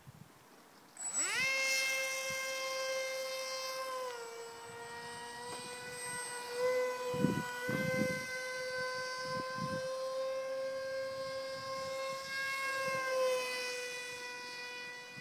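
Electric motor and propeller of a foam RC model SU-34 jet throttling up from silence about a second in: a quick rising whine that settles into a steady high drone. The drone dips slightly in pitch about four seconds in and again near the end, with a few dull low thumps around the middle.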